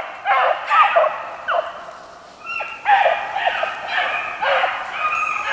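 A pack of hunting hounds baying and yelping in repeated, pitch-sliding calls as they run a hare's scent line across the road. The calls come in spurts with a short lull about two seconds in.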